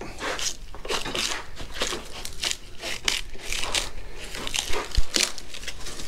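Draw knife peeling bark off a live-edge slab: a run of crackling, tearing scrapes as the blade works under the bark, between bark and wood, and strips it away. A sharper snap comes about five seconds in.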